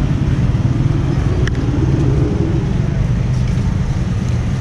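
Steady low rumble of vehicle engines and street traffic, with a short click about one and a half seconds in.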